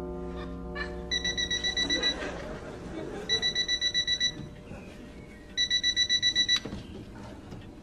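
Electronic alarm clock beeping in rapid bursts of about ten high beeps a second. Three bursts of about a second each come with pauses of a second or more between them.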